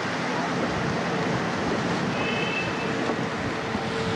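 Steady outdoor din of motorboat traffic on a canal, with a faint steady hum underneath and a brief high whistle-like tone about two seconds in.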